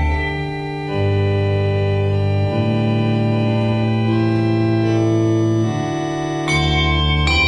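Sustained organ-like chords held and changing about every second and a half, with no bell strikes among them. Handbells are struck again about six and a half seconds in.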